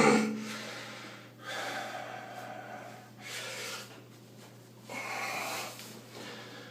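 A man breathing heavily through his nose and mouth, three loud breaths about two seconds apart, while he flexes and strains.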